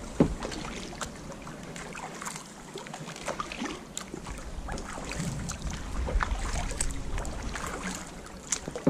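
Kayak paddling on calm lake water: the paddle blades dipping and pulling, with scattered drips and small splashes, and low wind rumble on the microphone at times.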